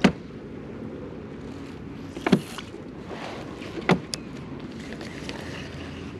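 Steady low wind and water noise on a kayak, broken by three sharp knocks, one right at the start, then two more about a second and a half apart, the later two with a quick falling tone.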